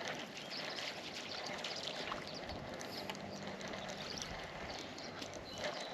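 Faint steady wash of water around a fishing boat, with a few light ticks.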